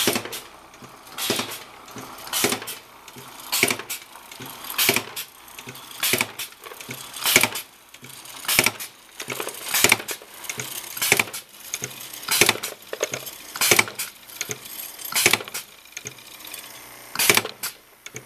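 Bottle corking machine cycling steadily, with a cluster of sharp mechanical clacks about every 1.2 seconds.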